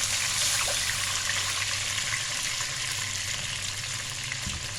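Water poured into a pan of hot oil with sautéed garlic, shallots and ginger, hissing and sizzling steadily with small crackles, easing off slightly towards the end.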